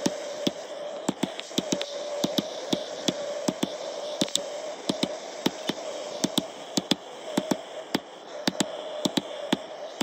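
Rapid, irregular hammer blows, about three a second, on a copper drift driving a stator out of an air-conditioner compressor's steel shell. Under them runs the steady roar of a gas blowtorch heating the shell to loosen it.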